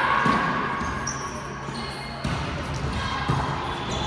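A volleyball being hit by hand during a rally, a few sharp smacks that echo around a large gym hall.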